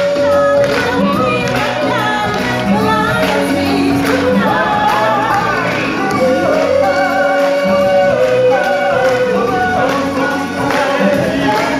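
Stage-show music with singing: sung vocals over a full musical backing, continuous and loud.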